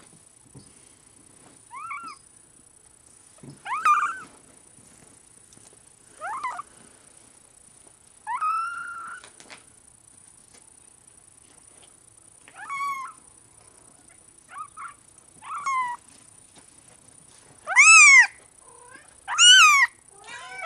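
Young Bengal kitten mewing: about nine short, high cries that each rise and fall in pitch, coming every second or two, the last two much louder.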